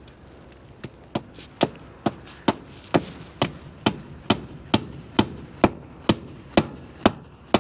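Hand hammer striking a wooden fence post, fixing wire mesh fencing to it: a steady run of sharp blows, about two a second, starting a little under a second in.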